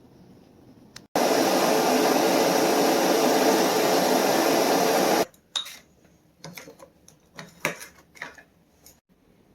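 A motor runs loud and steady for about four seconds, starting and stopping abruptly, followed by a series of light clicks and scrapes.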